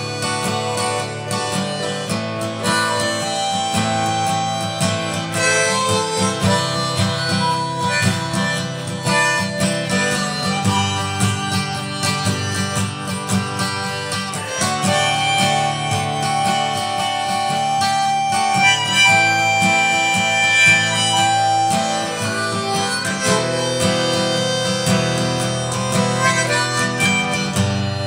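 Acoustic guitar and harmonica playing together. The guitar plays chords underneath while the harmonica carries the melody in long held notes.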